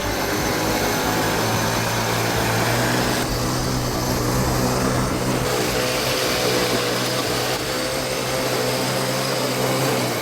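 Small model V8 engine running at a steady idle, an even low hum with no revving.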